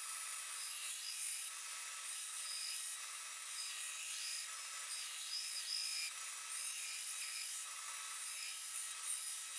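Belt grinder grinding the bevels of a hardened steel cleaver blade: a steady abrasive hiss that swells and eases a little as the blade is worked against the belt.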